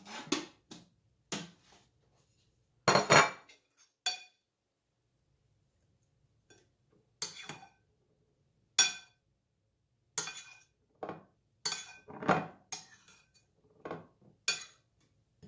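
Dishes and kitchen utensils clinking and knocking together, about a dozen separate clinks with a short ring, irregularly spaced, with a pause of a couple of seconds in the middle.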